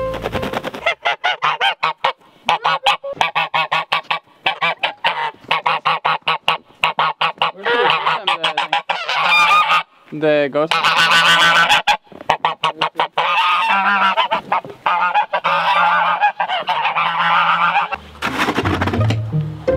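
Domestic geese honking loudly: a rapid string of short honks, then longer overlapping calls from several birds.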